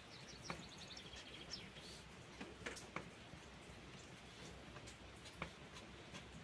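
Felt-tip marker tapping and scratching on a paper card as short tick marks are drawn, heard as faint, scattered taps. A brief high chirping trill runs through the first two seconds.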